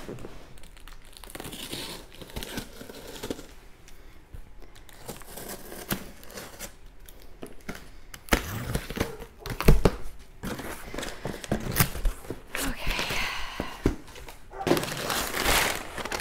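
Packaging crinkling and tearing as a shipping box of boxed and bagged products is opened and rummaged through, with irregular knocks and low thumps of items being handled, loudest a little past halfway.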